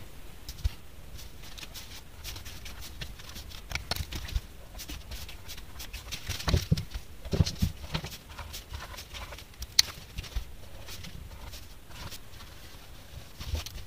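Felt-tip markers and a pen drawing small circles on a sheet of paper on a tabletop: faint scratching with scattered light clicks and taps as caps and pens are handled and set down.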